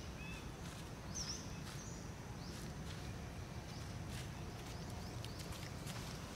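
Faint scratching and rustling of a long-tailed macaque's hand digging in dry dirt and leaf litter, over a steady low outdoor rumble. Two short high bird chirps come about a second in and again a little later.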